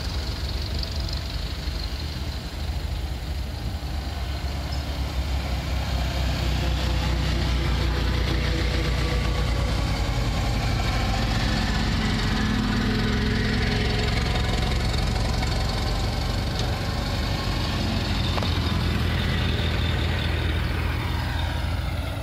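Ford Model T and Model A four-cylinder engines running as the old cars drive past one after another, a steady low engine note that is strongest around halfway through as one passes close.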